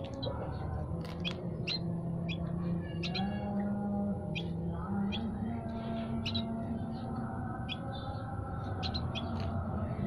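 Caged songbirds in a small aviary chirping, many short sharp high calls scattered through, over a low steady drone that shifts in pitch every second or two.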